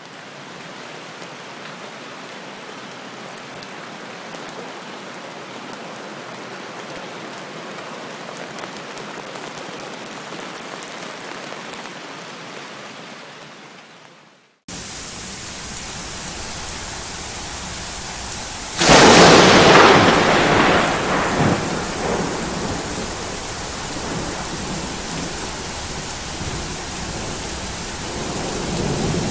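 Steady rain falling, fading in and then fading out about halfway through. A second rain recording then cuts in, and a few seconds later a loud thunderclap cracks and rumbles away over several seconds while the rain keeps falling.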